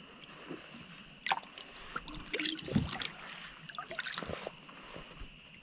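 Knocks, scrapes and a dull thump from a dog shifting and turning around inside a canoe, its paws and body bumping the hull, with the heaviest bump about halfway through.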